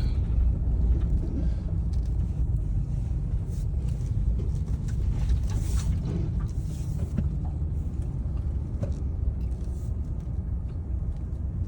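Steady low rumble of a vehicle being driven, engine and road noise.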